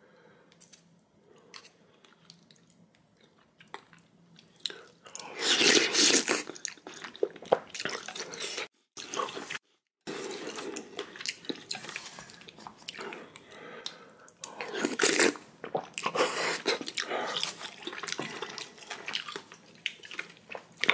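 Close-up eating sounds of spicy ramyeon: wet chewing and slurping, loudest about five seconds in and again around fifteen seconds. The sound cuts out completely twice for a moment near the middle.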